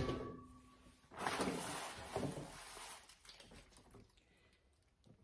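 A thud right at the start, then about two seconds of rustling as packs of meat in their packaging are handled.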